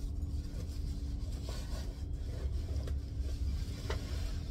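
Faint rustling and a few small clicks of granulated pumice being added to and mixed into peat-based potting substrate, over a steady low rumble and hum.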